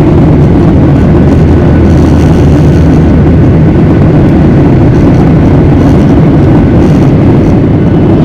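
Airliner cabin noise: a loud, steady low rumble of the engines and rushing air heard from inside the cabin.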